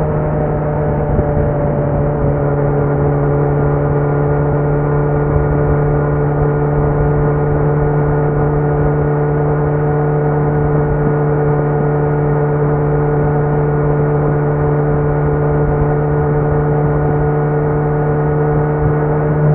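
2018 Kawasaki Z900's inline-four engine running through a Leo Vince muffler with no dB killer, held at a constant engine speed as the bike cruises, a steady drone that does not change in pitch.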